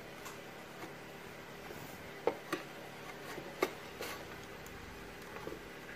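Metal chassis of an old 8-track car player being fitted into its sheet-steel housing by hand: scattered light metallic clicks and taps, with two sharper knocks a little past a third of the way through and just past halfway, over a faint steady hum.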